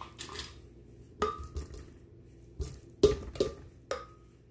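Fruit and a plastic cup knocking and clinking against a glass blender jar holding ice as the fruit is tipped in. There are about seven uneven knocks, the loudest about three seconds in, some leaving a short glassy ring.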